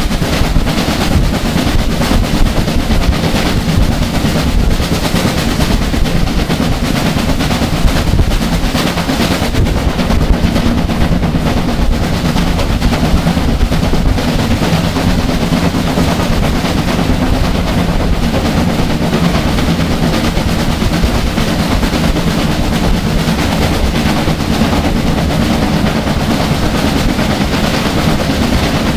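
BR Standard Class 5 steam locomotive 73096 working hard, its exhaust beating in a rapid, continuous stream, heard loud through an open carriage window along with the running clatter of the train.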